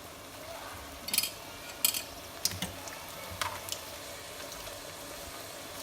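Palak paneer cooking in a pot with a steady low bubbling, and four or five sharp clinks and scrapes of a spoon against the pot between about one and four seconds in.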